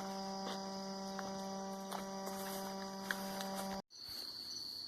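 A steady low electrical hum with several even overtones, which stops abruptly near the end; after a short break, a thin, steady, high-pitched insect trill like crickets.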